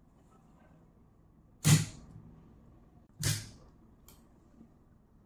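Two sharp clicks of a miniature circuit breaker's toggle being snapped by hand, about a second and a half apart, the first the louder. Power is being cut and restored to the smart-switch relay to test its power-on state, and the bulb comes on.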